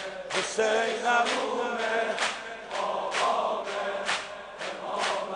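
Crowd of men chanting a Shia mourning lament (noha) in unison, with rhythmic chest-beating slaps about once a second.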